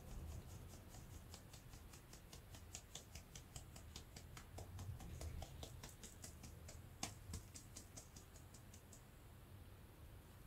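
Fine metal mesh sieve of flour being tapped and shaken over a glass bowl: a faint, quick run of light ticks, about four or five a second, with one sharper tick, stopping shortly before the end.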